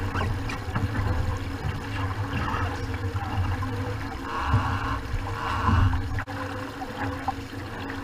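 Water rushing and splashing along the hull of a VX One sportboat under sail, with wind buffeting the microphone. The splashing grows louder twice about halfway through.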